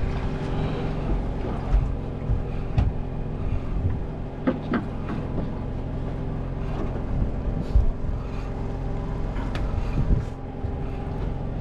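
Steady drone of a fishing boat's engine running, with scattered short knocks and clicks.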